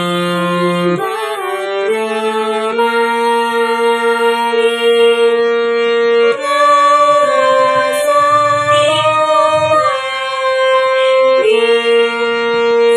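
Harmonium music: reedy held chords that change every second or two, with a melody wavering above them.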